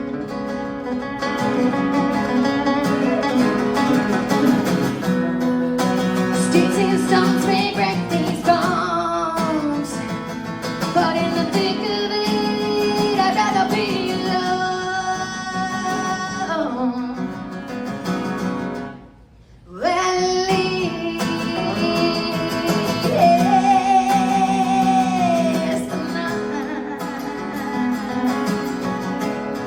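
A woman singing over strummed acoustic guitar in a live solo performance. The sound drops out for a moment about two-thirds of the way through, then the voice and guitar come back.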